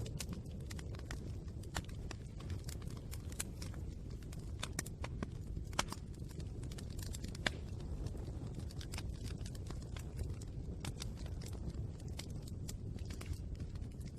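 Wood fire burning, with a steady low rumble and frequent irregular sharp crackles and pops.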